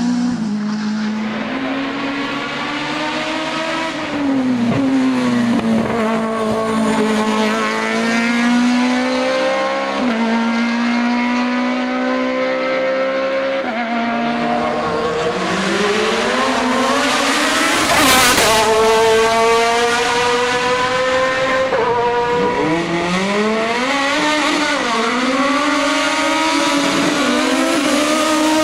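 Racing car engines at high revs, their pitch climbing and dropping sharply again and again as the drivers shift through the gears, with one loud close pass about eighteen seconds in.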